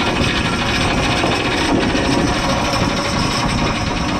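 Steady, loud noise of a party boat's engine running, mixed with wind buffeting the microphone.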